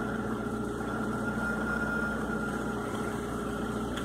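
Citroën Xsara Picasso engine idling steadily.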